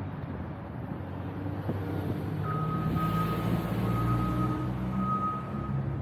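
A vehicle's reversing alarm beeping over and over at one high pitch, starting about halfway in, over the low engine of a large vehicle that grows louder.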